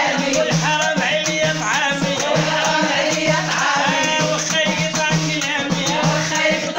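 Women singing a Moroccan chaabi song, one voice leading, over a steady rhythm of hand percussion: a frame drum and a metal tray beaten as a drum.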